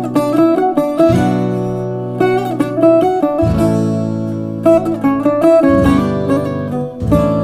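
Instrumental passage on plucked strings: a Greek bouzouki picking a quick melody over acoustic guitar chords, the low notes changing every second or two.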